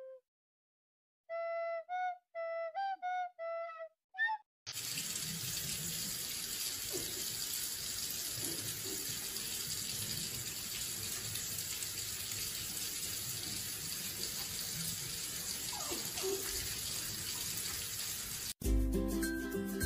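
Water running steadily from a kitchen tap into a sink. A few short flute notes come before it, and music starts near the end.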